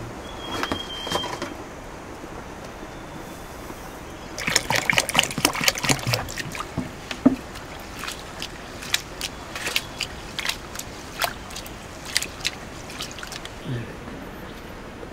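Rice being washed by hand in a pot of water: splashing and sloshing as the grains are rubbed and stirred, with scattered drips and splashes. It starts about four seconds in, busiest for a couple of seconds, then thins out.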